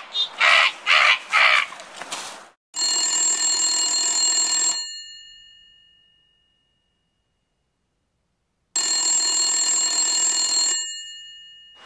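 A telephone-style bell rings twice, each ring about two seconds long and trailing away, the two rings about six seconds apart. It is preceded by a quick run of short sharp bursts in the first two seconds.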